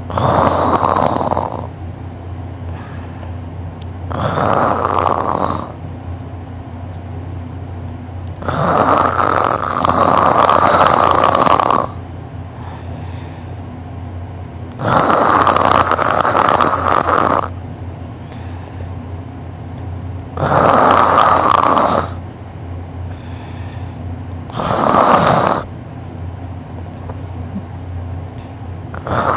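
A man snoring loudly in his sleep: seven long, rasping snores come about every four to five seconds, each lasting one to three seconds, over a faint steady low hum.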